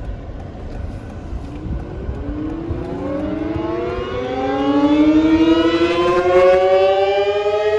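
Outdoor tornado warning siren winding up: a single pitched wail starts about two seconds in, climbs steadily in pitch and grows louder, sounding for a tornado warning.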